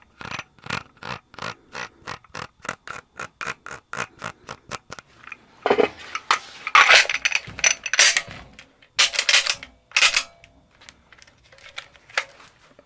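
Mechanical handling of an H&K USP40 pistol: a quick run of light metal clicks, several a second, for about five seconds, then a few louder, longer rattling and sliding bursts, then a few faint clicks near the end.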